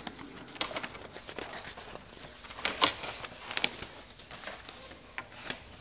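Loose sheets of printer paper rustling and crackling as they are turned and shuffled by hand, in a scatter of light, irregular rustles, the loudest a little under three seconds in.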